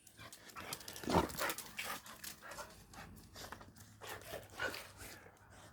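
A dog panting and moving about close by, with faint scattered clicks and rustles.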